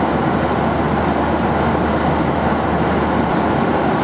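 Steady cabin noise of a Boeing 737-800 cruising at altitude: an even rush of airflow and engine noise heard from inside the cabin, with a constant low hum underneath.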